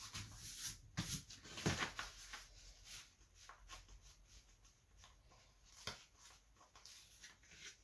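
Faint rustling and crackling of a diamond-painting canvas's plastic protective film being lifted and folded back by hand, with a few soft crackles about one and two seconds in and another near the end.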